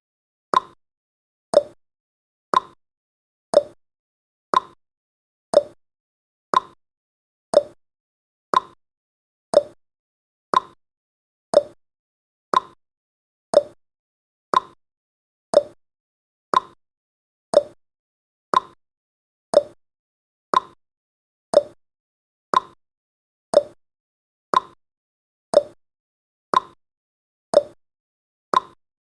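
Timer tick sound effect: a short, sharp tick once every second, evenly spaced, marking off the countdown's seconds.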